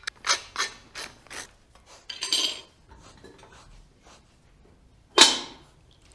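Butter knife scraping butter across crisp toast in quick, rasping strokes, about three a second for the first second and a half. A longer scrape comes about two seconds in, and one loud, sharp stroke just after five seconds.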